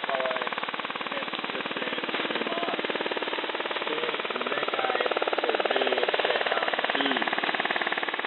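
Shortwave receiver audio tuned to 4055 kHz: hiss and static with a rapid, even pulsing buzz of interference throughout. Underneath is a very faint, wavering trace of a weak distant broadcast, the Radio Verdad signal being sought.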